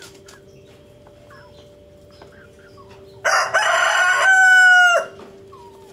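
Rooster crowing once, starting about three seconds in: a rough, ragged opening, then a long held note that falls in pitch as it ends, nearly two seconds in all and loud.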